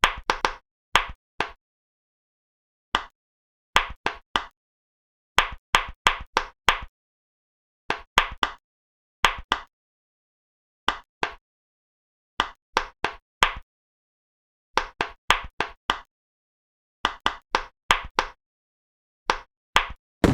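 Pop-it fidget toy bubbles popping: quick sharp pops in clusters of two to five, with silent gaps of a second or so between clusters.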